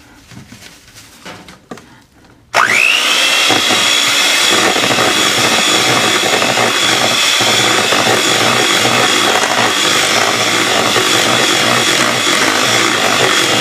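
An electric hand mixer is switched on about two and a half seconds in. Its motor whine rises quickly, then runs steadily as the beaters whip confectioners' sugar into butter and strawberry purée in a stainless steel bowl.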